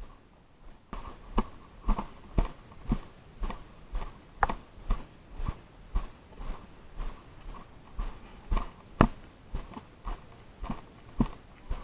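Footsteps of someone walking at a steady pace, about two steps a second, starting about a second in.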